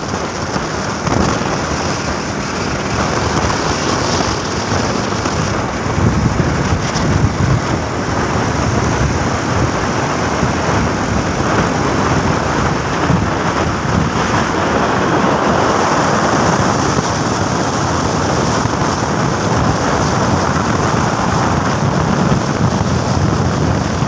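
Steady rushing noise of wind over the microphone mixed with the engine and tyre noise of a vehicle driving along a highway, getting a little louder about six seconds in.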